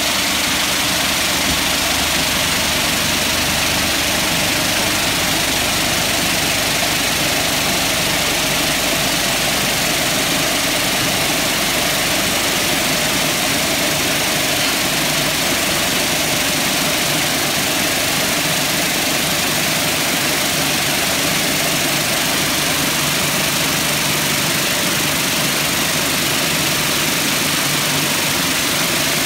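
Vibratory finishing bowl running, its grey triangular tumbling media churning and rattling against each other in a steady, dense clatter, with a steady low hum from the vibratory drive beneath. The media is being run out over the separation screen to part it from the workpieces.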